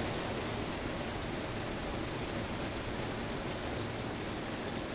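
Steady rain falling, an even hiss of drops.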